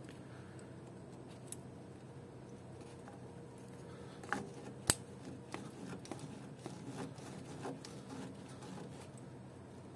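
Steel pliers clicking and scraping on a small metal coolant pipe and its fitting at the thermostat housing as the pipe is worked loose. There are two sharp clicks about four and a half seconds in, then lighter clicks and scrapes, over a faint steady hum.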